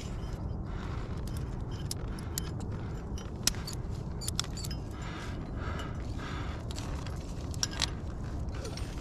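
Metal climbing gear clinking as a cam and its carabiner-ended alpine draw are handled and clipped: a scattered run of small sharp clicks and jingles over a steady low rumble.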